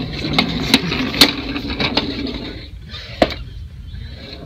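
Plastic wheels of a baby's ride-on toy rolling over a hard, smooth store floor: a steady rumble with several sharp clicks and knocks, getting quieter about halfway through.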